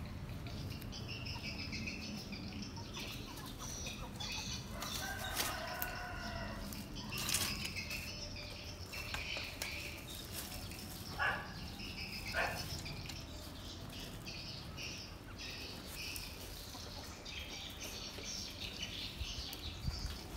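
Outdoor garden ambience: small birds chirping on and off throughout, with a louder, fuller call about five to seven seconds in and two short calls around eleven and twelve seconds, over a low steady background rumble.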